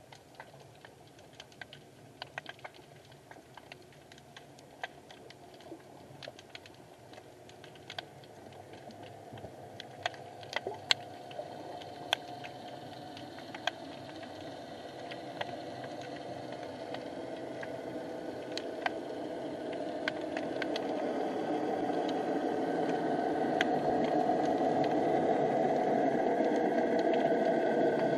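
Underwater sound in a harbour: scattered sharp clicks and crackles over a hiss that grows steadily louder through the second half.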